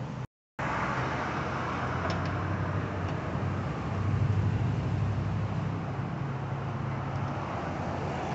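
A steady, low, engine-like mechanical hum, with a brief dropout near the start and a few faint clicks a couple of seconds in.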